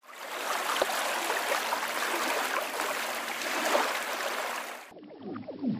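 Musique concrète soundtrack: a dense, trickling noise like running water in a stream, which cuts off abruptly about five seconds in. Overlapping falling, sliding tones take over.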